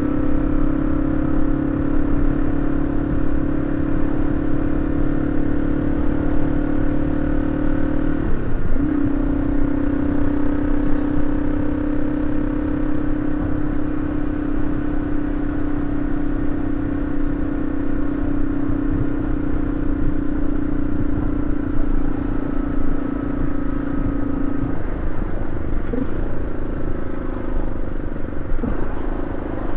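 Yamaha XT225 Serow's air-cooled single-cylinder four-stroke engine running at a steady cruise, with wind rushing past. Its note dips briefly about eight seconds in, then drops lower and quieter near the end with a couple of short breaks, as when the throttle is eased and gears are changed.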